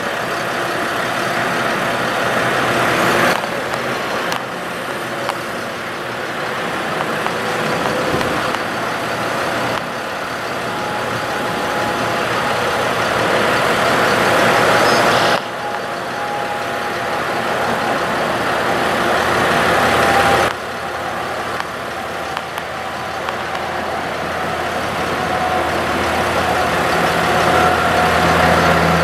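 Ford F-750's diesel engine running with the PTO driving the hydraulics of the Lift-All aerial boom while the boom is moved. The sound swells gradually and drops back abruptly four or five times, and a low engine hum comes through more clearly near the end.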